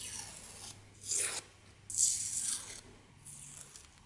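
Painted cast-iron vise parts being handled and slid against each other: four short scraping, rubbing sounds, the loudest about one and two seconds in.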